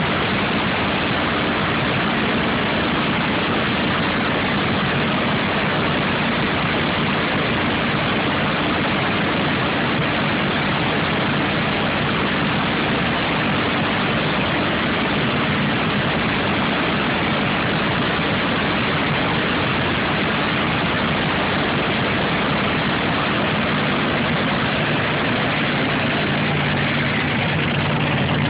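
A vehicle engine running steadily at idle under a hiss-like noise. Near the end a deeper engine note grows louder as the push truck starts pushing the race car away.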